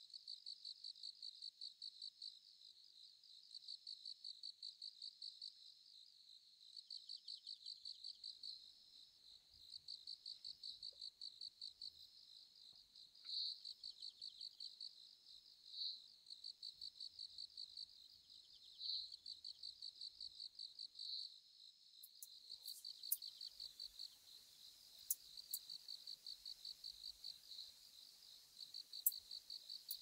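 Sickle-bearing bush-cricket (Phaneroptera falcata) calling: thin, high-pitched trains of rapid ticks a second or two long, repeated with short pauses, with a few sharp clicks near the end.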